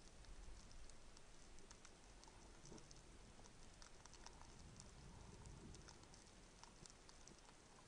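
Faint underwater ambience on a shallow rocky seabed: a steady sprinkle of tiny clicks and crackles, typical of reef crackle, over a low rumble of water.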